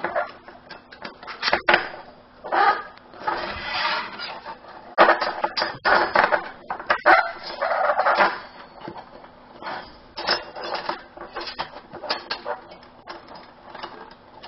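Thin stainless-steel panels and perforated base plate of a Lixada flat-pack box stove being slotted together by hand: irregular metallic clicks, taps and scrapes, with a few louder rattling clusters.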